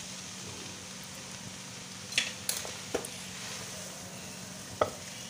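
Vegetables sizzling softly in a karahi as boiled egg noodles are added, with a few sharp knocks of a wooden spatula against the pan, about two, three and five seconds in.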